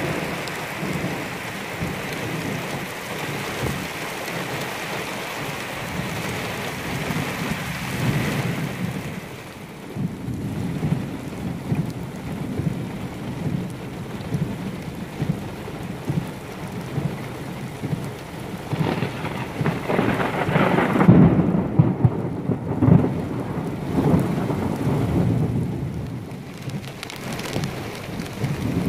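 Heavy rain hissing on wet ground. About nine seconds in the sound changes to a lower rush of wind-driven rain with low rumbling gusts, loudest around twenty seconds in.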